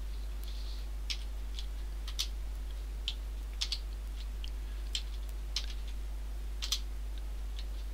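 Computer keyboard keys pressed in short groups, separate sharp clicks about every half second to second, sometimes two close together, as the same shortcut is entered over and over. A steady low hum runs underneath.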